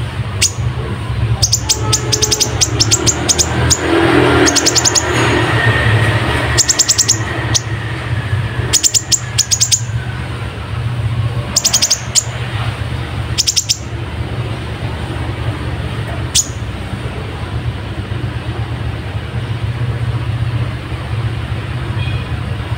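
Ruby-cheeked sunbird (kolibri ninja) singing in quick clusters of high, rapid chirps, with sparrow-like calls worked into its song. The chirp bursts come thick in the first part and thin out after about sixteen seconds, over a steady low hum.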